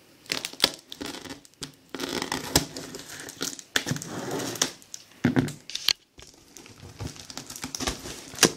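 A folding knife slitting plastic packing tape along the seams of a cardboard box, with irregular scraping, tape crackling and cardboard rustling, and a few sharp clicks, the sharpest near the end.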